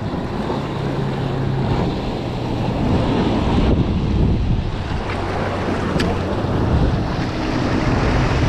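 Strong wind buffeting the microphone over waves and rushing water, with the low steady drone of a passing motorboat's engine.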